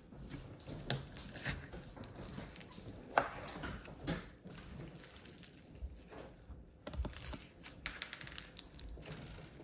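Fluffy slime being pulled out of its plastic tub and squeezed and stretched by hand, giving an irregular run of soft crackles, pops and squishes, with a sharper click about three seconds in and a busier cluster near the end.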